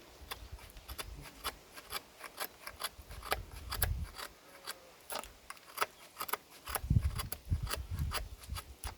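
Victorinox Farmer X Alox pocket knife blade slicing hard wood: a quick, irregular run of short scraping cuts, several a second, with a few heavier low knocks partway through.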